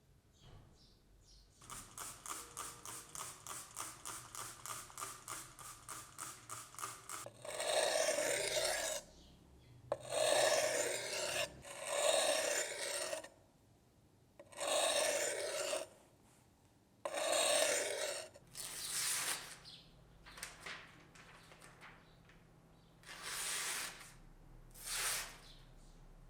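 Hand abrasion strokes on a knife blade, scraped against an abrasive by hand. First comes a fast run of short, even strokes, about four a second, for some five seconds. Then about five long, slow strokes of over a second each, then a few shorter ones.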